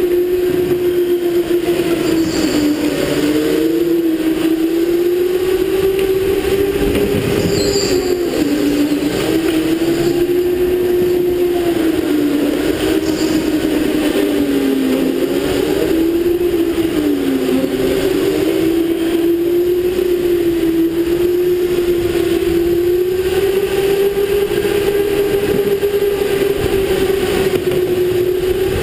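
Electric go-kart motor running at speed: a steady whine that dips in pitch and climbs back several times as the kart slows for turns and accelerates out, over tyre and track noise.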